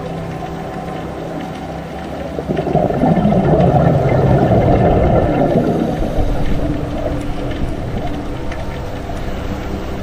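Small sea waves washing in over rocks in shallow water. A louder wash swells up about two and a half seconds in, lasts a few seconds, then eases back. Steady low tones run underneath.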